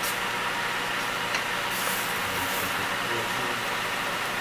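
Diced chicken, bacon and vegetables sizzling in fat in a pot, a steady hiss with a faint tick about a second and a half in.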